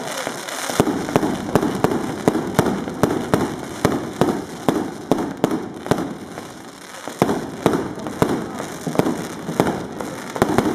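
Fireworks going off in a rapid string of sharp bangs, about three or four a second, over continuous crackling. The bangs thin out briefly about six seconds in, then pick up again.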